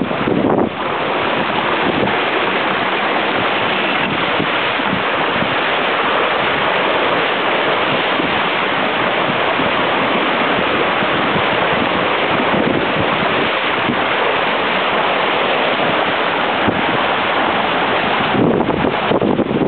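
Wind buffeting the microphone over water rushing and splashing along the hull of a Mini 6.50 prototype sailboat sailing fast under spinnaker. It is a loud, steady hiss, with heavier buffeting about half a second in and again near the end.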